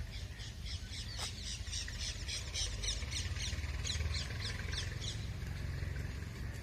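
A small bird calling in a fast run of high, repeated chirps, about five a second, that stops about five seconds in, over a steady low rumble.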